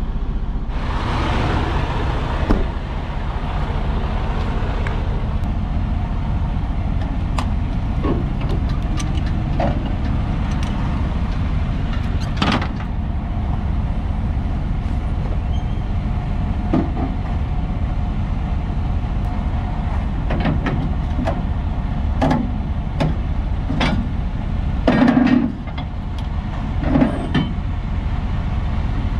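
Diesel semi-truck engine idling steadily, with a burst of air hiss about a second in and scattered knocks and clicks, a cluster of them louder near the end.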